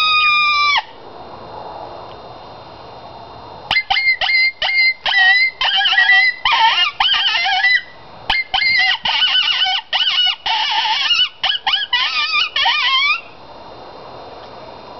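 A long falling howl note that cuts off just under a second in, then, after a short pause, a rapid run of high coyote-style yips, barks and wavering howls lasting about nine seconds, several pitches at times overlapping.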